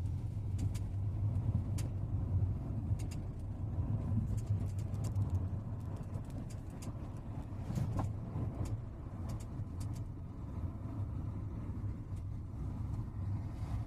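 Cabin noise of a moving 2014 Volkswagen SpaceFox: a steady low rumble from the road, with light, irregular clicks and knocks through it. The knocks are typical of the unlocated right-rear noise that the owner says seems to come from the suspension or wheel.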